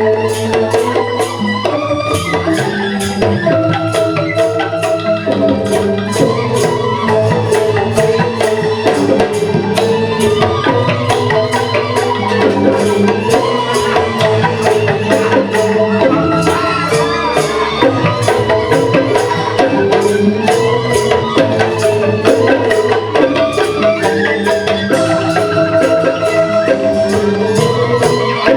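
Balinese joged bumbung gamelan playing: bamboo xylophones struck in rapid, continuous patterns, with percussion keeping a steady, fast beat.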